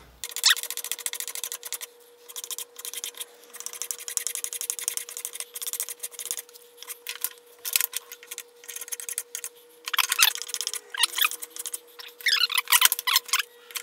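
Spokeshave shaving a hickory handle in repeated short, scraping strokes, with wood curls coming off. A few strokes near the end have a brief squeaky chatter.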